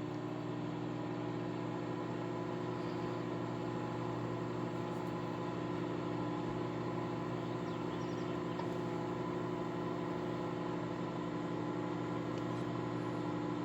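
Microwave oven running: a steady, even hum.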